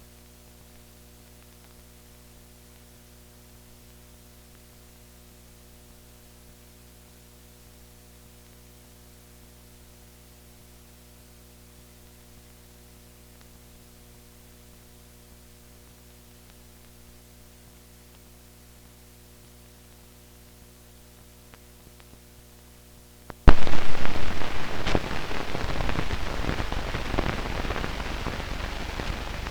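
Faint steady hum and hiss of an old film soundtrack with no programme sound. Near the end a sudden loud burst of crackling noise full of clicks breaks in and slowly fades.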